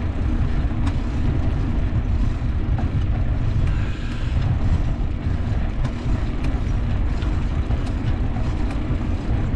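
Wind rushing over the microphone of a bicycle being ridden fast, a steady low rumble with no break.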